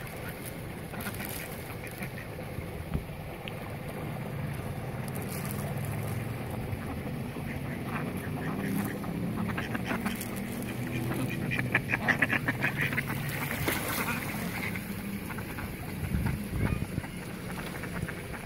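Mallard ducks quacking, with a run of quick repeated calls and the loudest calls about twelve seconds in.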